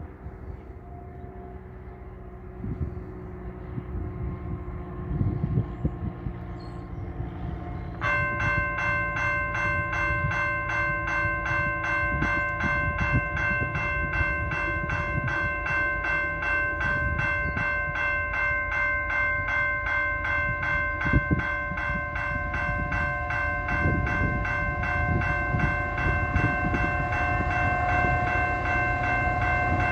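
A level crossing warning bell starts ringing suddenly about a quarter of the way in and keeps striking evenly, set off by the approaching train. Under it runs the low rumble of a freight train led by four GE diesel locomotives (CN ET44AC and ES44AC units), slowly growing louder as it nears.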